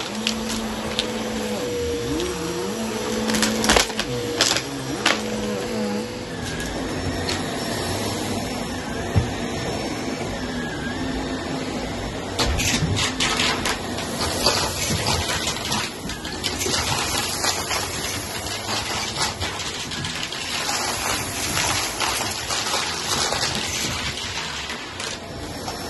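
Upright vacuum cleaner running on carpet, a steady motor noise with a humming tone that stops about six seconds in. Frequent sharp clicks and rattles of grit, small stones and coins being sucked up.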